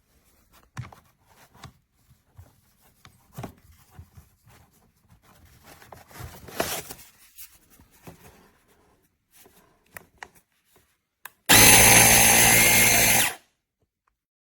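Light handling clicks and rustles, then about eleven seconds in the Wistrue portable battery air compressor runs loudly for about two seconds and cuts off.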